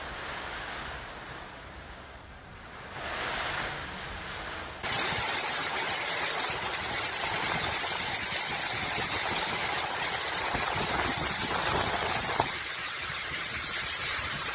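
Storm wind and heavy rain: a steady rush of rain at first, then about five seconds in, a sudden switch to a louder, even rush of strong gusting wind and driving rain.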